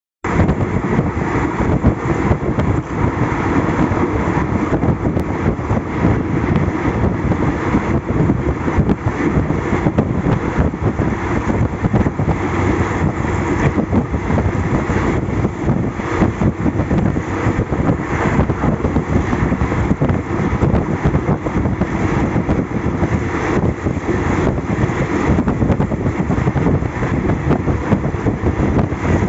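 Thai express passenger train running at speed, heard from inside a carriage by the window: a steady, loud rumble of the wheels on the track.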